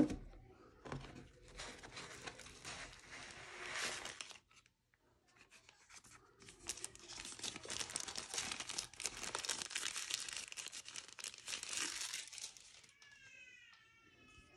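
Plastic bag and tissue-paper wrapping crinkling and rustling as a battery charger is pulled out of its packaging, in two long bouts with a short pause between. A sharp knock comes right at the start, and a brief squeak near the end.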